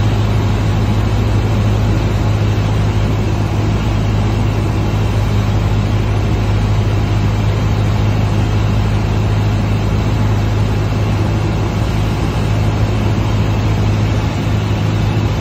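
Cessna 172's piston engine and propeller running steadily, heard from inside the cockpit as a constant low drone.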